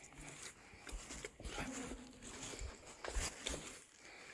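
Faint footsteps scuffing over rock, with clothing rustling and scattered soft knocks as someone walks.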